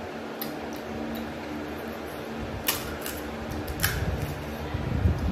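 Crisp fried pani puri shell cracked open with the fingers: two sharp crackles about a second apart, over a steady background hum.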